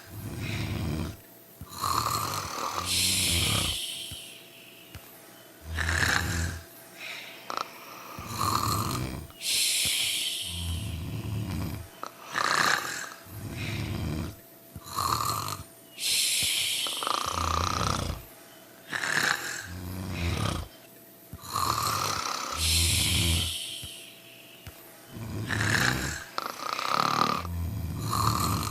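Several sleepers snoring together in a regular rhythm, a breath cycle about every three seconds. Each cycle has a low rasping snore and an airy hissing breath.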